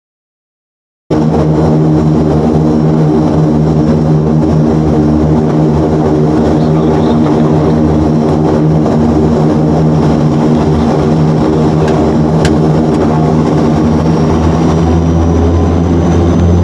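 Antonov An-26's twin Ivchenko AI-24VT turboprops running, heard from the cockpit as a dense, steady propeller drone. The sound cuts out for about a second at the start, and near the end a faint high whine rises slowly as the low drone strengthens.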